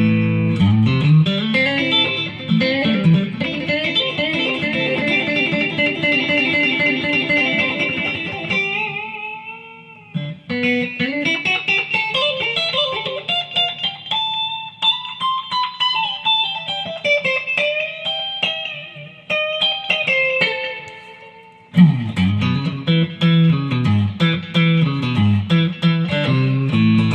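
Custom-built Stratocaster-style electric guitar played solo, with its pickup switching set for a Telecaster-like tone: a run of picked notes and chords, pausing briefly twice, before a low riff on the bass strings near the end.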